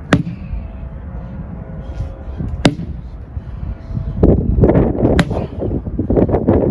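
Sledgehammer striking a tire three times, about two and a half seconds apart, in an overhead slam exercise. Wind buffets the microphone throughout, heaviest in the second half.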